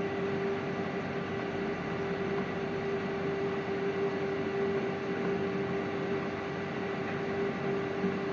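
Steady machine hum and whir with one constant mid-pitched tone, unchanging throughout.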